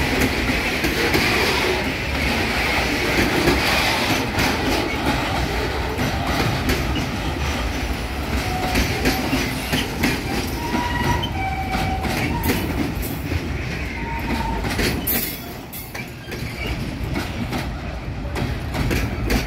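Freight train wagons loaded with containers and tank containers rolling past: a steady rumble and clatter of wheels on the rails, with a few short squeals from the wheels in the middle.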